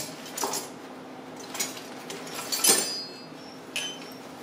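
A few scattered light metallic clinks and knocks, about a second apart, one leaving a brief high ring: a chainsaw round file and small hand tools being handled as the dull file is swapped for a fresh one.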